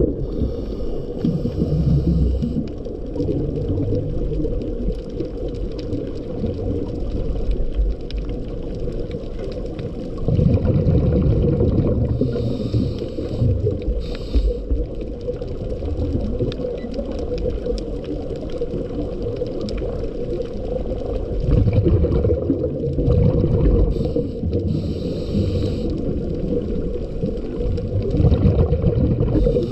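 Underwater sound through a camera's waterproof housing: a steady muffled drone, with a scuba diver's breathing coming back about every ten seconds. Each breath is a rumbling rush of exhaled bubbles and a hiss from the regulator.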